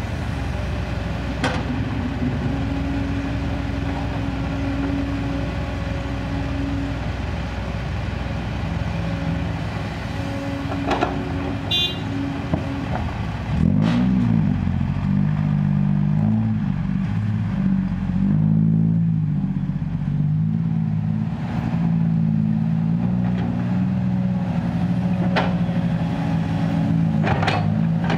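Kobelco SK200 hydraulic excavator's diesel engine running steadily while digging and loading soil. Its pitch changes and wavers about halfway through as the hydraulic load shifts, with a few sharp metallic clanks.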